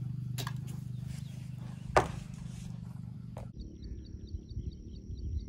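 Small handling clicks, with one sharp click about two seconds in. Then, after a cut, open-air ambience: gusty wind rumbling on the microphone and a high, thin chirp repeating several times a second.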